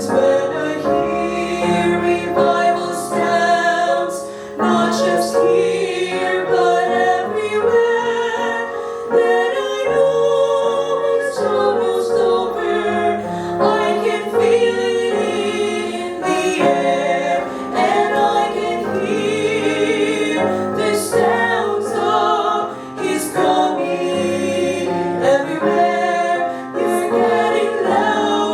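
A choir singing a slow gospel song over musical accompaniment.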